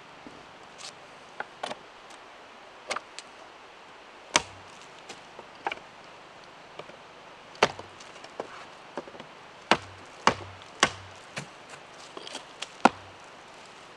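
Hatchet chopping a thin branch against a wooden stump: a string of sharp, irregularly spaced blade strikes into wood, the hardest blows coming in the second half.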